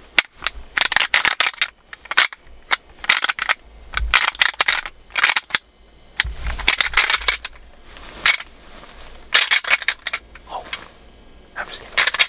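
Handheld plastic deer-rattling device shaken in about ten short, clattering bursts of clicks, imitating the clash of antlers of whitetail bucks fighting.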